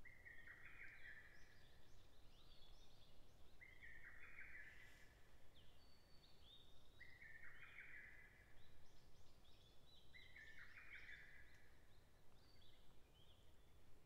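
Lesser cuckoo singing faintly: its staccato phrase repeated four times, about every three and a half seconds, each phrase lasting a second or so.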